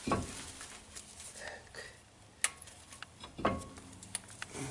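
Small steel brake pad guide clips being fitted into the slots of a caliper bracket: a few scattered light metallic clicks, with a duller knock at the start and another about three and a half seconds in.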